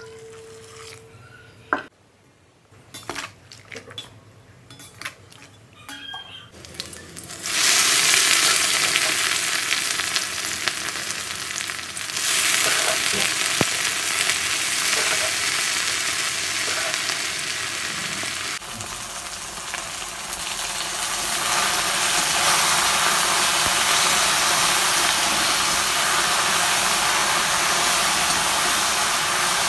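Black taro stolons sizzling as they stir-fry in oil in a wok. A few light clicks and knocks come first. About seven seconds in, a loud, steady sizzle starts and carries on while they are stirred.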